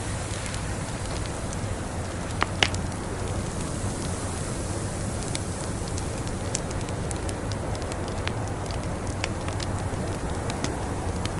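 Wood fire crackling in a fireplace: a steady hiss with scattered sharp pops and snaps, two louder pops close together about two and a half seconds in.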